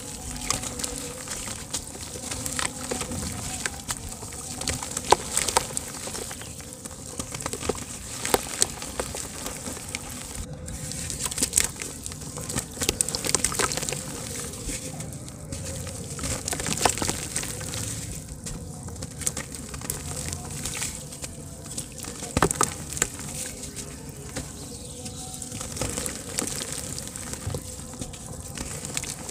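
Hands crumbling and crushing lumps of dry soft dirt: irregular crunching and crackling, with gritty trickles as crumbs and powder fall onto a pile.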